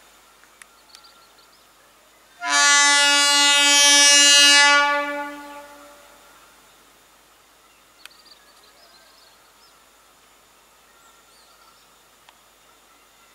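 Horn of an Indian electric local (EMU) train sounding one long, steady single-tone blast of about two and a half seconds, starting a couple of seconds in and then fading away.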